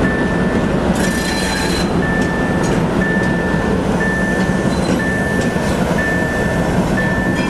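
ČME3 shunting diesel locomotive, its six-cylinder diesel running, rolling past slowly with a steady low rumble. A warning signal beeps a single high tone about once a second throughout, and a short hiss comes about a second in.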